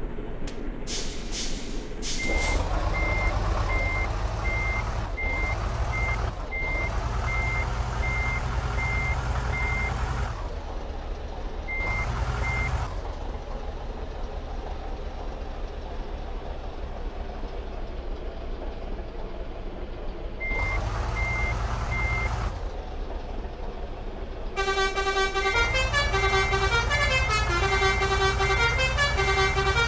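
Bus engine running and swelling several times, with a repeated single high beep at under two beeps a second. Near the end a multi-trumpet 'telolet' horn plays a changing tune of several tones at once.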